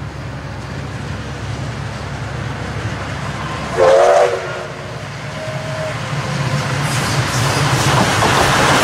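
DT650-class steam locomotive DT668 approaching with a train: a steady low rumble of wheels and running gear, one short loud whistle blast about four seconds in with a fainter brief tone soon after, then growing steadily louder as it nears.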